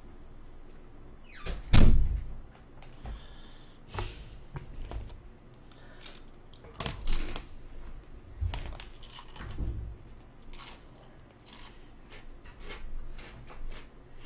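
Irregular thumps and knocks from someone shifting about at a desk, with the loudest thump about two seconds in and softer knocks every second or so after.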